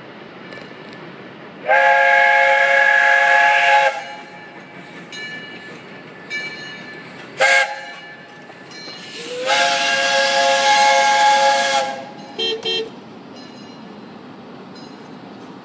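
Multi-note steam whistle of Lehigh Valley Vulcan 0-6-0 locomotive #126 sounding a chord: a long blast about two seconds in, a short toot, a second long blast, then two quick short toots, over a steady hiss.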